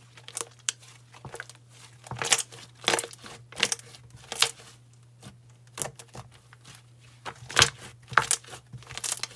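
Slime being squished and poked by hand, giving irregular sticky clicks and crackles.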